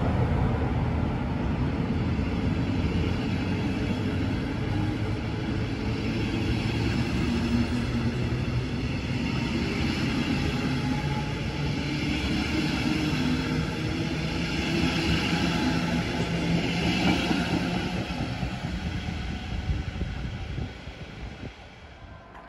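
Electric-hauled regional train of double-deck coaches rolling past close by, a steady rumble of wheels on rails that fades away near the end as the last coach goes by.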